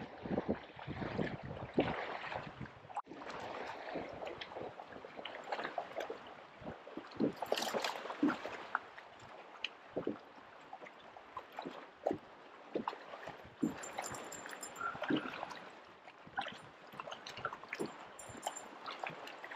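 Wind-driven waves lapping and slapping irregularly against an aluminum bass boat's hull, with wind.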